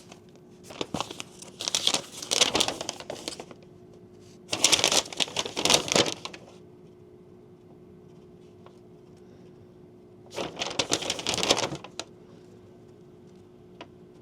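Packaging crinkling as it is handled, in three bursts of a couple of seconds each: about a second in, around five seconds in and near ten seconds in, over a faint steady hum.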